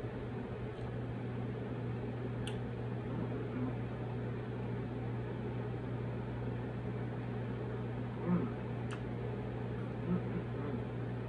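A steady low mechanical hum throughout, with a few faint clicks of a plastic fork in a foam takeout container as food is picked up and eaten.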